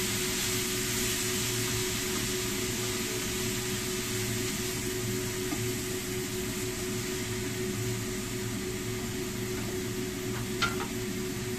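Vegetables frying in a frying pan on a gas stove while they are stirred with a spatula: a steady hiss over a steady hum, with one sharp clack of the spatula against the pan about ten and a half seconds in.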